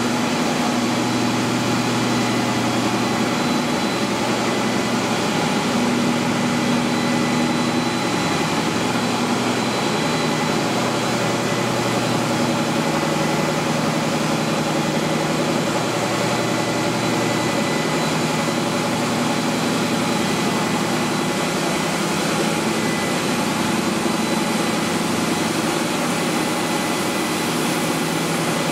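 Plastic recycling extruder line running: a steady machine drone with a low hum and a thin, constant high whine.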